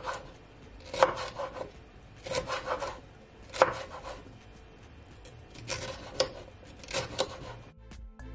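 Kitchen knife slicing a red sweet pepper into strips on a wooden cutting board: short runs of crisp cuts knocking on the board, a second or so apart, with pauses between.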